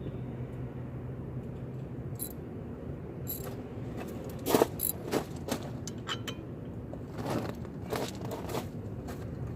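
Metal hand tools clinking and scraping as they are handled and sorted, a string of sharp irregular clicks, the loudest about halfway through.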